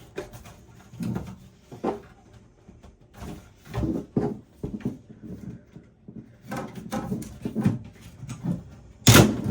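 Irregular knocks, clicks and rattles of hardware being handled inside a desktop PC case during disassembly, with the loudest clatter near the end.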